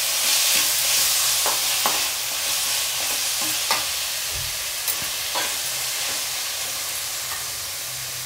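Chopped onions and tomatoes sizzling in oil in a non-stick kadai while being sautéed, with a perforated steel spatula scraping and tapping against the pan a few times as they are stirred. The sizzle grows gradually quieter.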